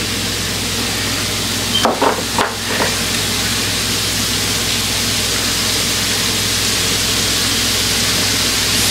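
Burger patties sizzling steadily on a hot electric griddle, with a few brief louder sounds about two seconds in.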